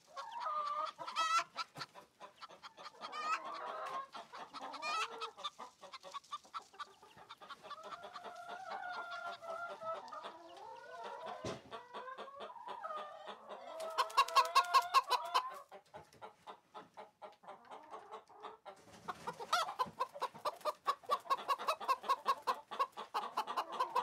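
Domestic hens clucking, with fast runs of clucks, loudest about two-thirds of the way through and again near the end.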